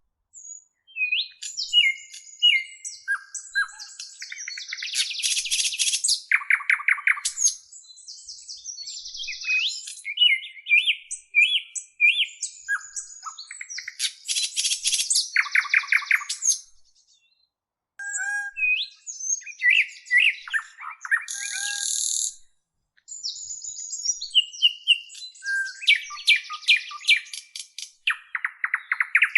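A songbird singing a long, varied song of chirps, whistled glides and rapid buzzy trills, delivered in phrases with two brief pauses.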